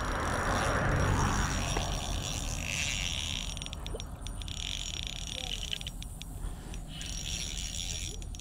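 Spinning reel being cranked to retrieve the fishing line, a steady high whirring that stops briefly about four seconds in and again near the end. A short rush of noise in the first two seconds, with low wind rumble on the microphone.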